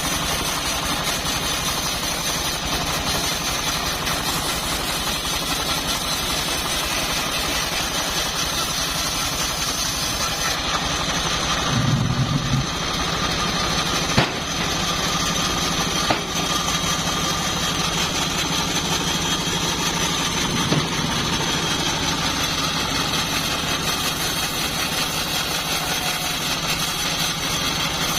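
Homemade bandsaw mill running steadily, a constant mechanical drone, with two sharp knocks about halfway through.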